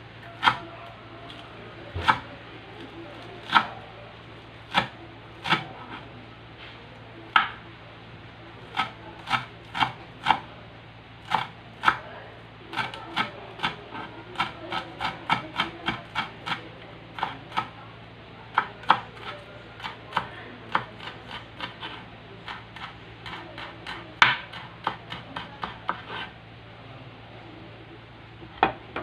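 Kitchen knife chopping celery on a wooden cutting board: sharp knocks of the blade on the wood. They come slowly and unevenly at first, then in a quicker run of about two to three cuts a second for some fifteen seconds, before tailing off to a few last cuts.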